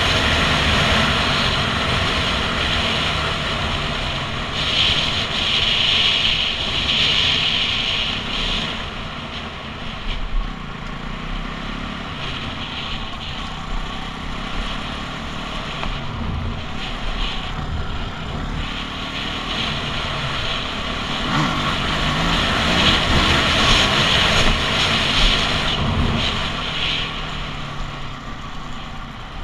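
Dirt bike engine running under way, its revs rising and falling as it is ridden over a rough track, with wind rushing over the camera microphone.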